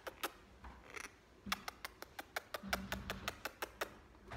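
A quick run of small wet lip-smacking kissing clicks, a few at first and then about four or five a second for a couple of seconds, with a short low hum in the middle.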